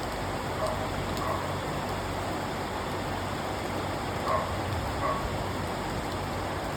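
Steady rain falling on a window, an even hiss, with a few brief louder plinks about a second in and again around four and five seconds in.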